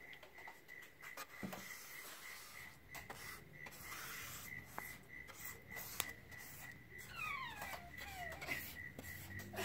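A hand rubbing oil over an end-grain Oregon wood cutting board: faint rubbing with a few light clicks. A faint, steady, pulsing high tone runs underneath, and a few high falling whines come in near the end.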